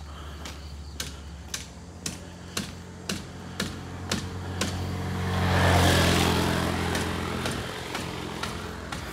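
Footsteps on a concrete road, about two a second. A motor vehicle passes, its engine and tyre noise rising to a peak about six seconds in and then fading.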